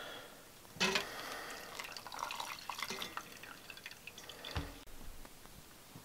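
Hot water poured from a stainless stovetop kettle into a Stanley steel pour-over coffee brewer, trickling and dripping unevenly. There is a sharp start a little under a second in and a dull thump about four and a half seconds in.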